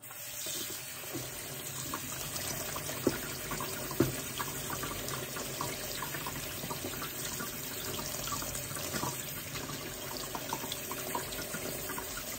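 Kitchen tap water splashing onto broccoli florets in a plastic colander in the sink as they are rinsed. Two sharp knocks stand out about three and four seconds in.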